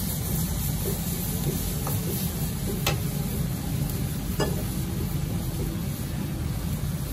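Metal ladle stirring and scraping a bubbling coconut curry with vegetables in a steel wok, tapping sharply against the wok twice, about three and four and a half seconds in. Underneath is the steady low roar of a gas wok burner.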